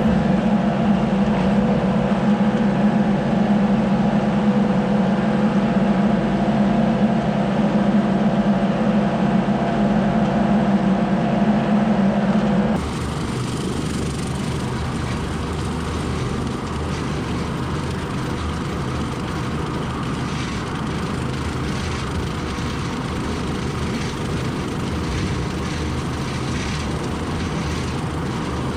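Steady vehicle driving noise, a constant drone with a steady hum in it; about 13 seconds in it cuts abruptly to a quieter, more even rushing road noise.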